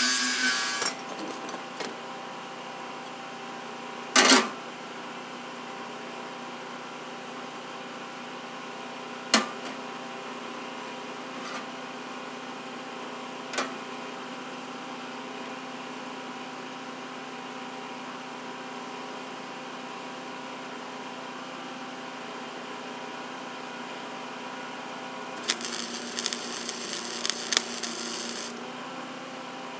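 An angle grinder on a steel box stops and spins down in the first second, leaving a steady hum from the running wire-feed welder, broken by a few sharp metal knocks. Near the end comes about three seconds of crackling wire-feed (MIG) welding on the steel box.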